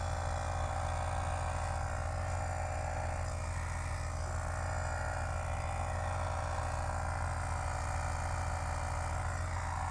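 Slime mini 12-volt tyre-inflator compressor running steadily, pumping air into a motorcycle's rear tyre: an even, a little loud, buzzing drone.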